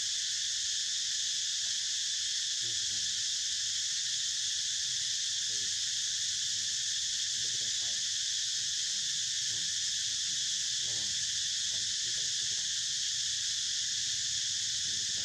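Steady, unbroken high-pitched buzzing of an insect chorus, with faint short calls now and then underneath.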